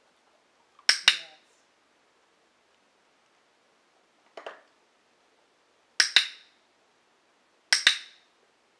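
Dog-training clicker pressed three times, each a sharp double click-clack, about a second in and twice more near the end, marking the dog's moves during training; a fainter short tap comes midway.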